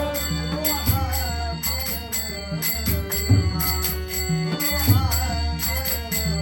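Traditional Konkani devotional bhajan, performed live: a singer's voice over sustained accompaniment, with a drum and small hand cymbals striking a steady beat.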